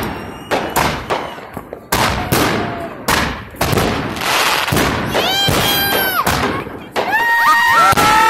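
Aerial fireworks going off in quick succession: repeated sharp bangs and pops with hissing crackle between them. Near the end, several long, high-pitched tones overlap.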